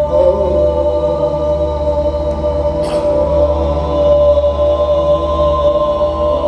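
Theatre soundtrack of sustained droning music: long held, chant-like tones over a steady low hum. A brief hiss sounds about three seconds in.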